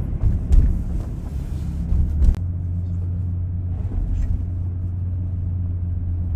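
Car cabin road noise while driving: a steady low rumble of engine and tyres, with some rattles over the first couple of seconds, then a smoother, even drone from about two and a half seconds in.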